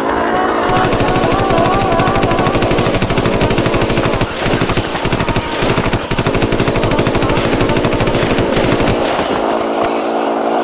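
Cartoon machine-gun fire: a very rapid, continuous rattle of shots with short breaks about four and six seconds in, dying away near the end, over a steady held hum.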